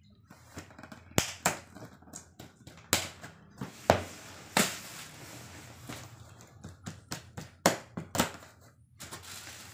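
A thin screwdriver tip stabbing and slitting the packing tape along the seams of a cardboard box: a dozen or so short, sharp scraping and tearing strokes against the cardboard.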